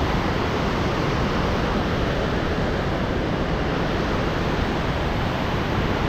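Kootenai Falls on the Kootenai River: a close, steady rush of falling white water, even and unbroken throughout.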